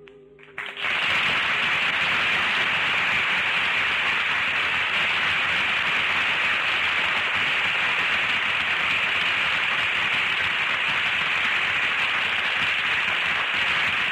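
Studio audience applauding steadily, starting abruptly about half a second in as the music ends.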